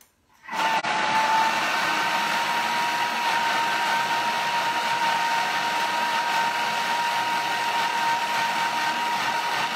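Thermomix TM6 running its blade at speed 6 for a 10-second chop, cutting chunks of raw carrot, onion, tomato, zucchini and celery into small bits. It starts about half a second in and runs at a steady pitch, a constant motor whine over the churning of the vegetables.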